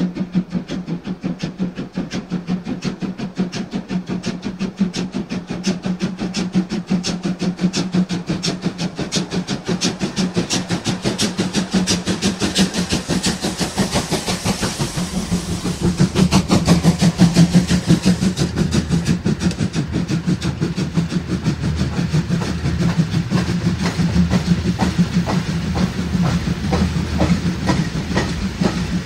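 Steam locomotive working a heavy freight train at low speed, its exhaust beating in a fast, even rhythm with a hiss of steam; the sound grows loudest about halfway through as it passes close by.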